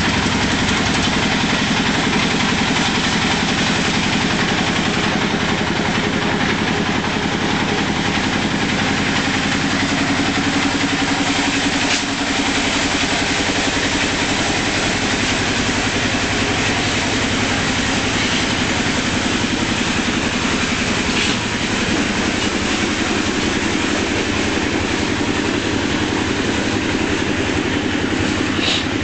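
Concrete mixer's engine running steadily with a fast, even chug.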